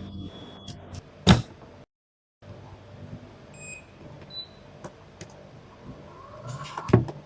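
12-volt tubular roller-blind motor running on test with a steady low hum. There is a sharp click about a second in and another near the end, and a brief dead gap about two seconds in.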